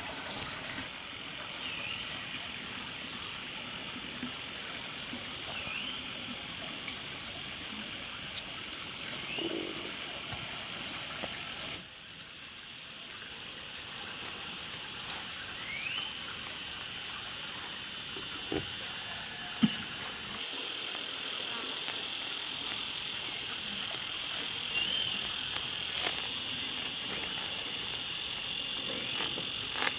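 A steady high-pitched insect drone, like a cricket chorus, with short rising chirps every couple of seconds and a few faint clicks and knocks. It drops abruptly about twelve seconds in, then builds back up.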